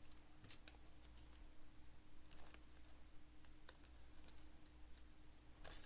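Faint, scattered light clicks and flicks of trading cards being handled and flipped through one by one, over a low steady hum.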